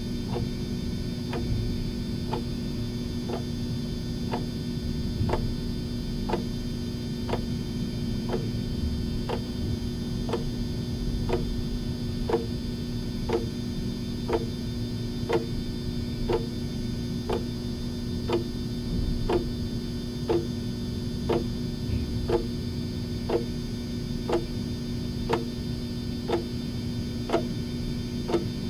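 A clock ticking steadily about once a second, over a constant low hum.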